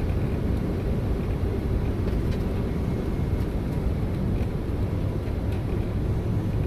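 Steady low rumble of airflow and engines heard inside the cabin of an Embraer ERJ-140 jet on final approach, just before touchdown.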